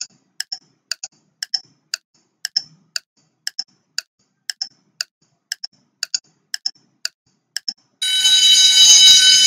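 Quiz countdown-timer sound effect: clock ticks at about two a second. About eight seconds in, a loud alarm buzzer sounds for a second and a half as the timer runs out.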